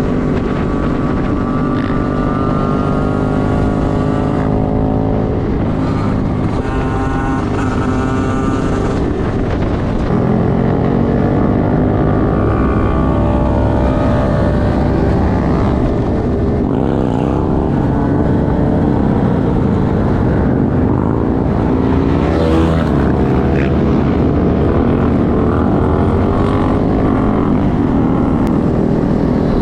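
Honda Grom motorcycle engine running while riding, its revs rising and falling, with other bikes' engines mixed in.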